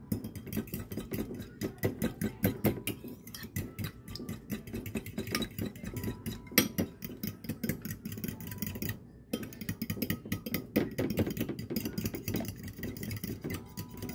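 A fork beating eggs in a bowl: a quick, dense run of clinking and tapping strokes against the dish, with a brief pause about nine seconds in.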